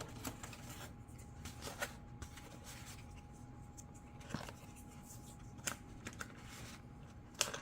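Light handling of the RC jet's plastic landing gear pieces being fitted into the airframe by hand: scattered small clicks and rustles, with a sharper click near the end, over a faint steady tone.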